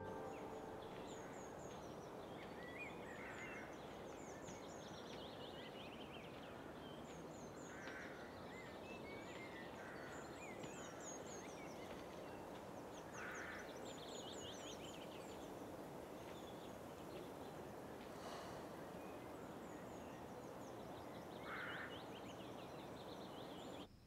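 Outdoor woodland ambience: small birds chirping and twittering over a faint steady background hiss, with a few lower calls now and then. It cuts off suddenly at the very end.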